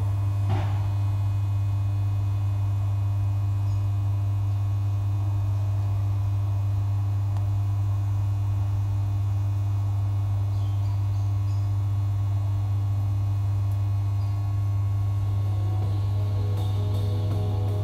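A steady low electronic drone from an ambient music track, one deep note held without a break, with faint higher tones entering near the end.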